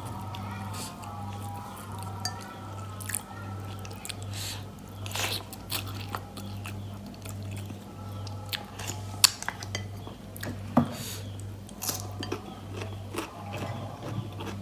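Close-up eating sounds: a person chewing and biting bakso meatballs and rice vermicelli in soup, with irregular wet mouth clicks, two louder ones past the middle. Quiet background music with a steady pulsing bass runs underneath.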